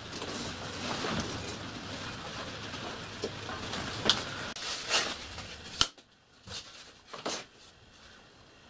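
OSB board pieces being handled on a wooden workbench, with a few sharp knocks and clatters over a steady background noise. The loudest knock comes a little under six seconds in, and the background drops away abruptly right after it, leaving a few fainter knocks.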